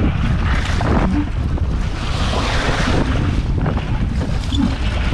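Wind rumbling on the microphone over choppy lake waves slapping and splashing around a small rowing boat, with louder surges of splash about half a second in and again from about two to three seconds in.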